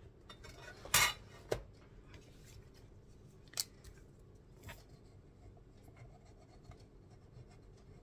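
Paper and craft supplies handled on a cutting mat: a short loud paper rustle about a second in, a sharp tap just after it, then two single clicks and light scattered handling sounds.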